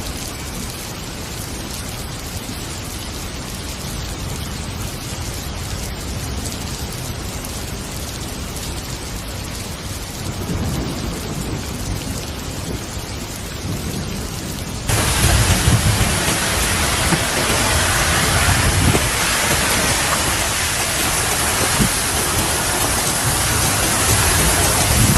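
Heavy rain pouring steadily in a windstorm, with low rumbling underneath. About two-thirds of the way through, it suddenly jumps louder and hissier.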